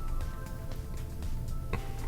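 Background music with steady held notes, and a single sharp click near the end.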